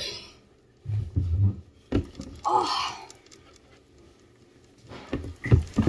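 Phone handling noise as the phone is moved and repositioned: dull bumps about a second in, a sharp knock at about two seconds, and more knocks near the end, with a short breathy sound in between.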